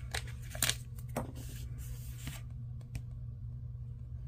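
Paper sticker sheet handled: sharp rustles and crinkles in the first second or so, then a short hiss as a sticker is peeled off its backing, with a faint click near the end, over a steady low hum.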